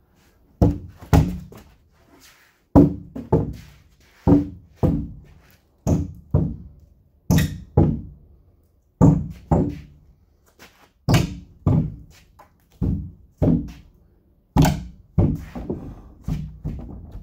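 Heavy wooden thunks against thick hardwood slabs, about twenty strikes coming in quick twos and threes.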